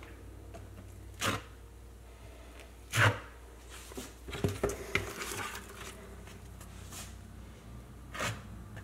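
Small plastic notched trowel scraping tile mastic across a textured wall in a series of short strokes, the loudest about three seconds in.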